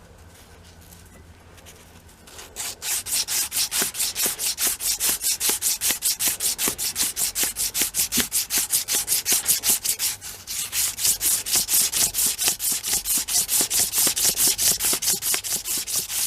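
Hand sanding: rapid, even back-and-forth strokes of abrasive rubbing on the hatchet's handle, about four a second. They start about two and a half seconds in and pause briefly near the middle.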